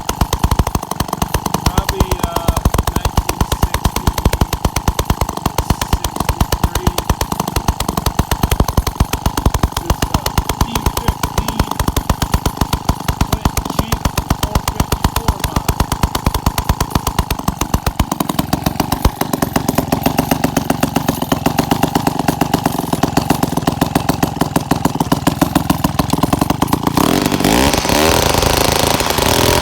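Clinton D15 two-stroke chainsaw engine, about 55 years old, running on its first start after revival: at first a low idle with its single firing strokes distinct, then about two-thirds of the way through it runs faster and steadier, and near the end it revs up louder.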